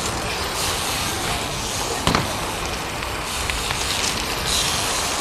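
BMX bike rolling over paving stones: a steady crackling tyre noise, with a sharp knock of the bike about two seconds in and a few lighter clicks later.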